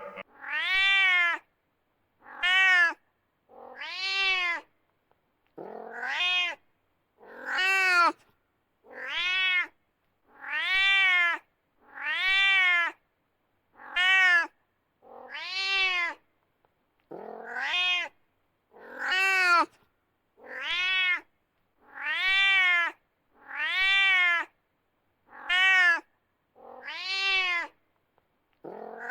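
A cat's meow-like call repeated about every second and a half, each cry rising then falling in pitch, some starting with a low upward slide.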